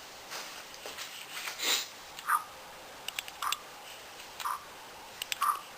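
Oil glugging out of a bottle as it is poured back into a small engine, a short gurgle about once a second, with light clicks between.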